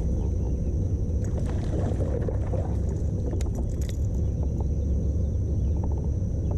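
Kayak moving on a river: a steady low rumble of water against the hull, with a thin steady high whine behind it and a few faint clicks.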